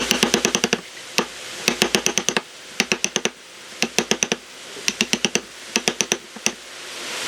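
Bursts of rapid, sharp tapping, several quick taps at a time, repeating about once a second.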